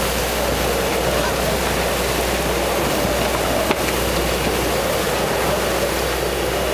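Strong wind and rough sea around a sailboat at the helm in cyclonic conditions: a steady, loud rush of wind and water with a low rumble. A single sharp click sounds a little past halfway.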